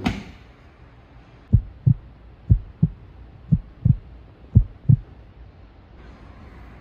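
Heartbeat sound effect: four low double thumps, lub-dub, about one a second, starting about a second and a half in.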